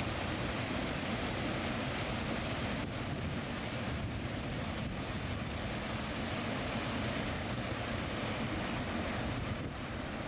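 Steady rushing water, an even noise with no pitch or rhythm.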